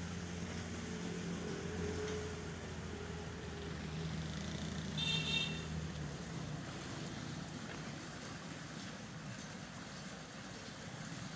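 An engine running steadily with a low hum, its pitch drifting slightly. About five seconds in comes one short, high-pitched tone.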